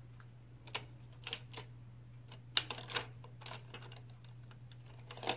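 Makeup tools being handled while a fluffy blending brush is picked out: a handful of light, scattered clicks and taps over a faint steady low hum.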